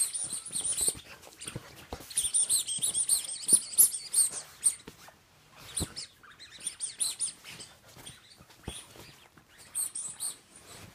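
Bedsheets rustling and scraping in quick irregular bursts as a puppy paws, scrabbles and tugs at them.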